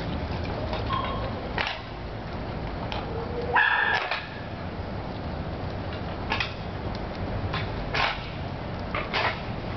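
Group of dogs moving about and playing on concrete: scattered clicks and knocks over a steady low rumble, with one short dog yelp about three and a half seconds in.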